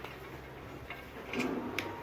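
A few separate light clicks and a dull knock of small hard parts being handled and fitted during assembly, the sharpest click coming near the end.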